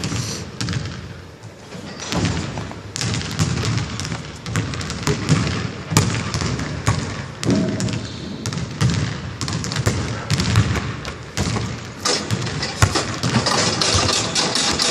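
Basketball dribbled on a hardwood gym floor: repeated thuds echoing around a large gym.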